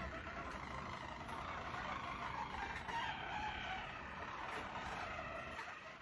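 Harzer Roller canaries, a song breed bred for a low, rolling song, singing a continuous rolled trill that eases off near the end.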